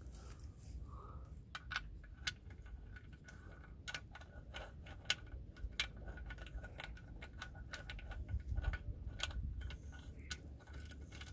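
Irregular light clicks and clinks, like hand tools and small metal parts being handled, with a faint steady high tone behind them.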